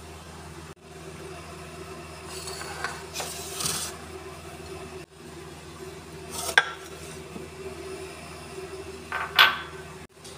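Glass clinks and knocks as sliced mango is tipped from a small glass bowl into a glass blender jar. There is a short sliding rustle a few seconds in, a sharp clink midway, and the loudest knock near the end, all over a steady low hum.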